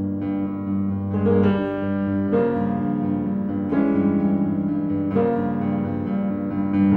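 Silent-film-style piano accompaniment, with a new chord struck every second or so.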